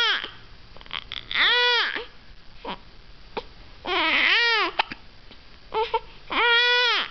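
A baby making three high squealing calls, each under a second long, with the pitch rising and falling within each call. Short sharp catches come between them.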